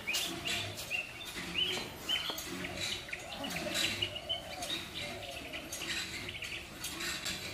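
Small birds chirping: short, high calls repeated many times, with scattered sharp clicks.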